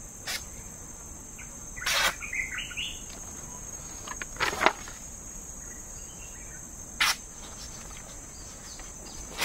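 A sharp parang blade slicing through sheets of paper in about four short swishes, a couple of seconds apart, over a steady high drone of insects. A bird chirps briefly after the second cut.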